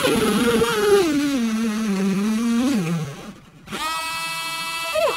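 Handheld rotary tool drilling into the plastic frame of an Etch A Sketch. Its high whine wavers in pitch as it bites into the plastic, then winds down about three seconds in. After a short quiet it runs again at a steady pitch.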